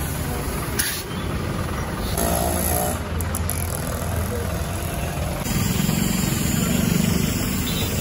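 Steady road traffic noise, with a vehicle engine hum getting louder from about halfway through.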